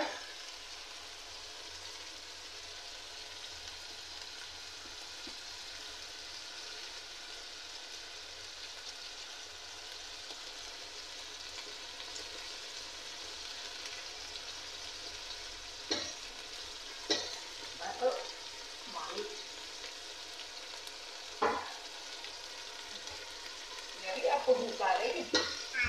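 Onion and ginger-garlic-green-chilli paste frying in oil in an aluminium pot: a steady sizzle as tomato pieces are cut into it. A few sharp knocks come in the second half, and more near the end.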